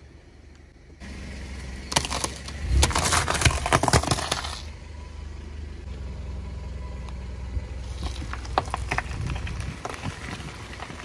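A car tyre rolling over cooked potatoes and crushing them: a loud, dense crackling and squashing from about two seconds in to about four and a half seconds, over the car's low idling engine. Scattered sharp cracks follow near the end.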